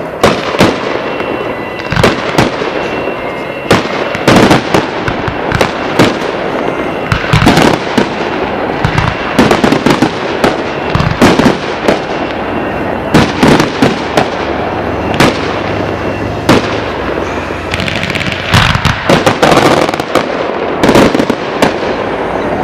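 Fireworks display: aerial shells bursting in quick succession, sharp bangs coming close together throughout with a noisy crackle between them.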